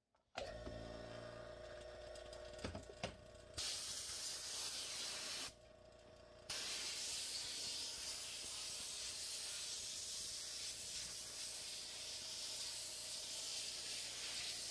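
A vacuum-forming table's pump starts with a steady motor hum. Then a compressed-air blow gun hisses over a freshly vacuum-formed Kydex sheet, pausing for about a second partway through before blowing again.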